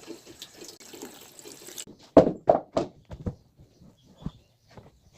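Running water hiss that cuts off abruptly about two seconds in, followed by a series of sharp knocks: three loud ones in quick succession, then a few fainter ones.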